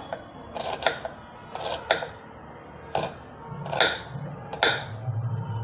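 Kitchen knife chopping roasted onion on a wooden chopping board: a slow run of single knife strikes on the board, about one a second.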